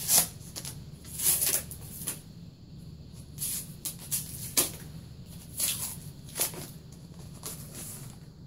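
Flat cardboard sheets and packing being handled and lifted out of a cardboard box: a series of short rustles and scrapes, about half a dozen, over a steady low hum.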